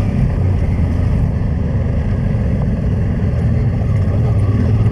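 Honda Transalp motorcycle engine running steadily while being ridden, with wind noise on the microphone.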